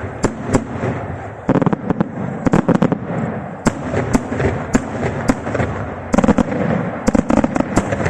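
Daytime aerial fireworks going off: a string of sharp bangs over a rumbling echo, with several quick clusters of rapid crackling reports.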